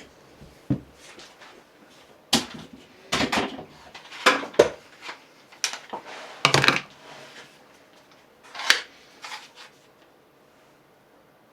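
A series of separate knocks and clatters, about eight over nine seconds, from wood pieces and clamps being handled and set down on a workbench.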